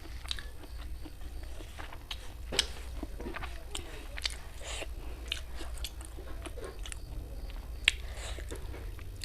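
A person chewing and biting food close to the microphone, with irregular wet clicks and crunches and two sharper snaps, about two and a half seconds in and again late on. A steady low hum runs underneath.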